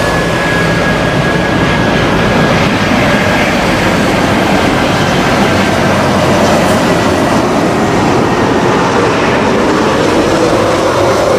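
Airbus A320's CFM56 jet engines on final approach: a loud, steady roar with a faint high whine that drifts slightly lower in the first few seconds.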